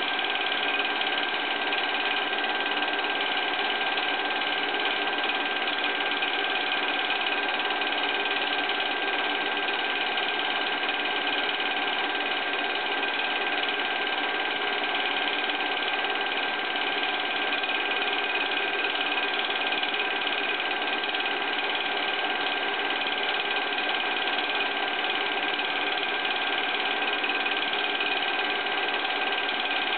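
Film projector running steadily, its mechanism whirring and clattering evenly with a constant hum.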